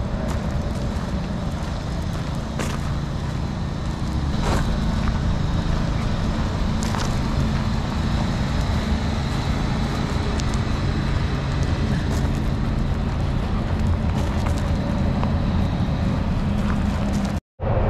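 Steady drone of traffic on the nearby freeway, with a few light crunches of footsteps on a gravel path.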